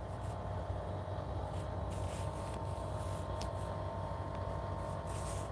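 Steady low background hum with a few faint steady tones above it and occasional faint ticks; no clear event stands out.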